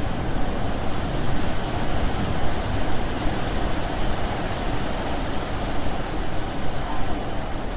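Steady rain falling, a continuous even hiss with no distinct drops or pauses.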